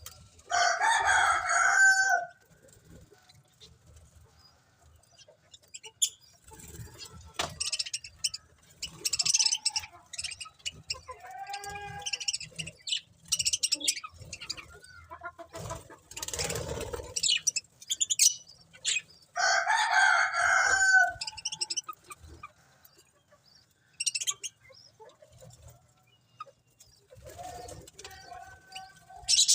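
Budgerigars chirping and chattering in short, high calls, with two louder, drawn-out calls of about two seconds each: one near the start and one about twenty seconds in.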